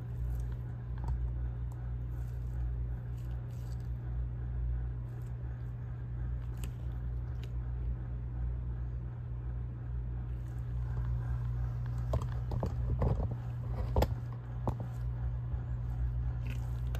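Steady low machine hum, with a few short clicks and rustles of handling about twelve to fifteen seconds in.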